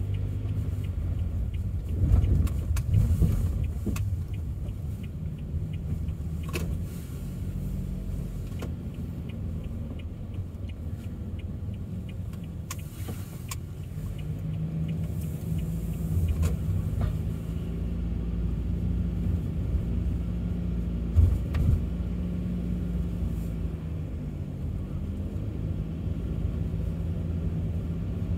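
A car driving, heard from inside the cabin: a steady low engine hum with road and tyre noise. A few short thumps and knocks come through, loudest about two seconds in and again about 21 seconds in.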